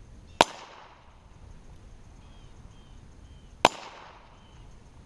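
Two shots from a Heritage Rough Rider single-action .22 revolver firing .22 LR, about three seconds apart. Each is a sharp crack with a short echo trailing off.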